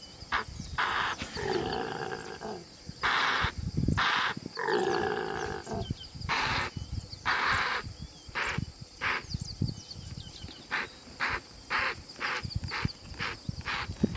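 A large wild animal calling in a long series: several drawn-out calls about a second each, then shorter calls repeating faster in the second half.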